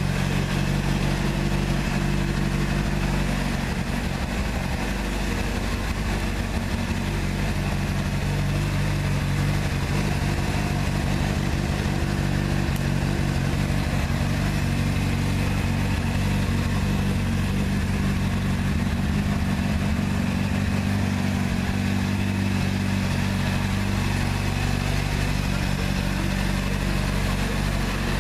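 2005 Honda CBR600RR's 599 cc inline-four engine idling steadily, with no revs.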